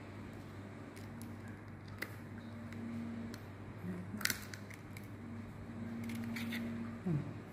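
An eggshell is pried and cracked apart by fingers. It gives a few faint crackles and clicks, the sharpest about two and four seconds in, from a tough shell that won't break cleanly. A faint steady low hum runs underneath.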